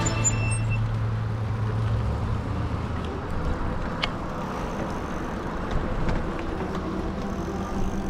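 Road traffic: a vehicle's low engine hum fades out over the first two or three seconds, leaving a steady low rumble.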